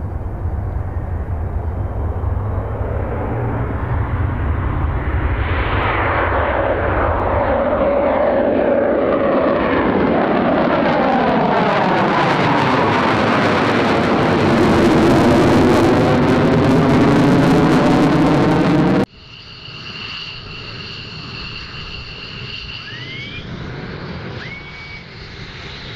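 Military fighter jet taking off, its engine noise building to a loud peak with a sweeping, wavering quality as it passes. About nineteen seconds in the sound cuts off abruptly to a quieter jet engine whine with two steady high tones.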